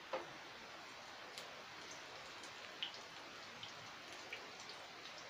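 Besan-battered spinach leaves frying in hot oil: a steady sizzle with scattered crackling pops, the sharpest just after the start as a leaf is lowered in.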